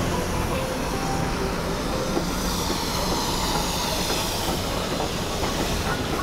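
BR Standard Class 2MT steam locomotive 78018 and its coaches rolling past a station platform, with a steady, even noise of wheels running on the rails.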